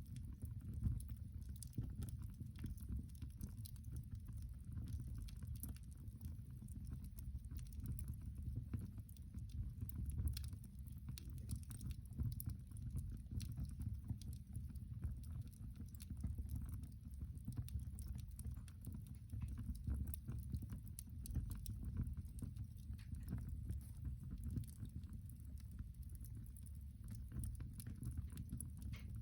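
Fire crackling in a cast-iron fireplace: many scattered sharp crackles and pops over a steady low rumble.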